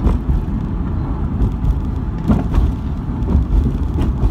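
Road and engine noise of a moving car heard from inside the cabin: a steady low rumble, with a couple of faint thuds about two and a half seconds in.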